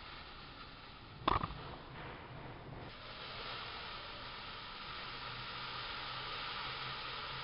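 Sharp click about a second in, then a steady hiss that grows a little as the tabletop model volcano's chemical fire takes hold at the crater and starts throwing sparks.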